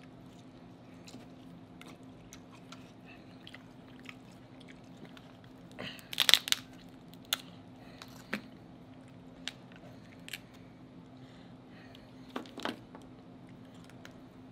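Cooked king crab leg shell cracking and snapping as it is broken apart by hand. The loudest cracks come in a cluster about six seconds in and a pair near the end, with scattered smaller clicks and chewing between them.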